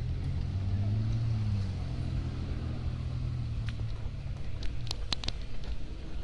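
Low-revving engine of a Suzuki Samurai 4x4 pulling up a dirt track, the note swelling about a second in, with a few sharp clicks about five seconds in.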